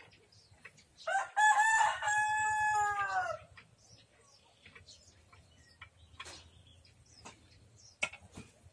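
A rooster crowing once: a loud call of about two seconds, broken at the start, then held and dropping in pitch at the end. A few faint clicks follow.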